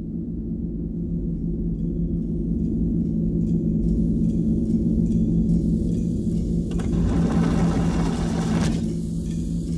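Film sound effect of a training robot lowering from the ceiling: a steady, low mechanical hum that slowly grows louder, with faint ticking from about two seconds in and a hiss joining it around seven seconds.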